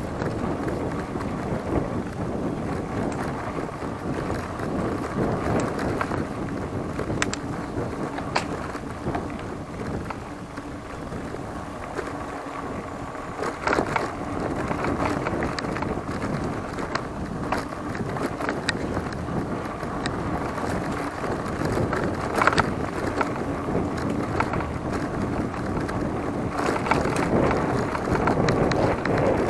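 Giant Talon 3 hardtail mountain bike being ridden on a dirt trail: steady tyre and ride noise with sharp knocks and rattles now and then, and wind buffeting the microphone.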